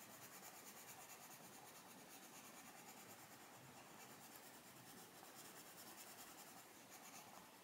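Faint scratching of a Castle Arts Pasteltint coloured pencil shading on colouring-book paper, in a steady run of small strokes.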